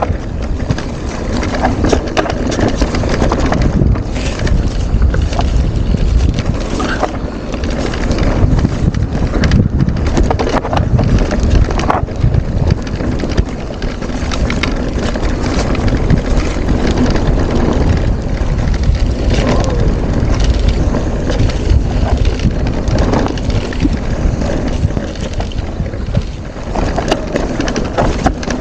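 Wind buffeting the microphone of a camera carried on a mountain bike riding down a singletrack, over continuous tyre noise on the dirt trail. Many short knocks and rattles from the bike jolting over the ground sound throughout.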